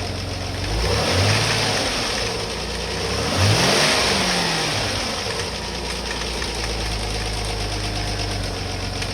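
Rover KV6 V6 engine revved up and back down twice, then settling to a steady idle, with the inlet manifold rattling away. The rattle is the sign of the manifold's internal parts failing, a common fault on these engines.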